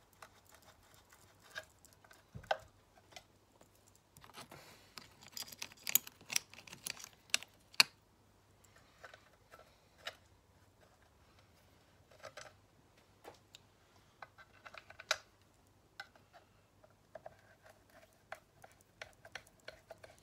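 Scattered light metallic clicks and small taps as screws are handled and fitted into the crankcase halves of a Stihl TS350 cut-off saw, with a cluster of louder clicks from about four to eight seconds in.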